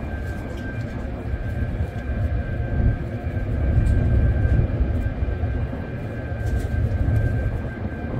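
Ship's machinery running with a steady high whine, under a heavy wind rumble on the microphone that swells a few seconds in and again near the end.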